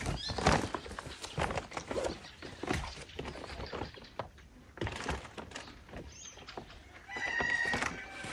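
Irregular knocks, thuds and rustling as bags and household items are handled and loaded into a car's boot and back seat, with a brief pitched call or tone near the end.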